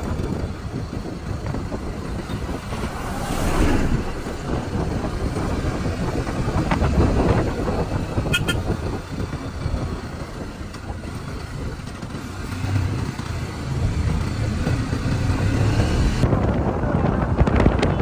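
A moving road vehicle's rumbling road and engine noise with wind buffeting the microphone, and a short high-pitched beep about eight and a half seconds in.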